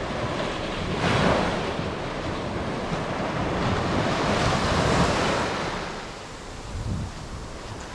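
Sea waves breaking and washing up the beach, swelling about a second in and again around four to five seconds in, with wind buffeting the microphone.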